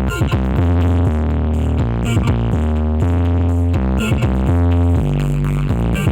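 Electronic dance music, a DJ remix with a drum-machine beat and a heavy bass line that steps from note to note, played loud through a rented sound system during a sound check.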